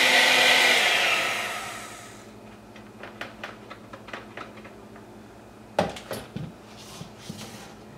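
An old electric hand mixer whirring as its beaters whip egg batter in a steel bowl, switched off about a second in and dying away. Later there are small clicks and a knock as the mixer is set down on the counter.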